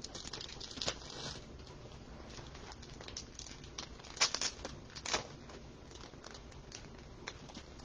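Crinkling and scattered light clicks from packaging being handled, louder about four and five seconds in.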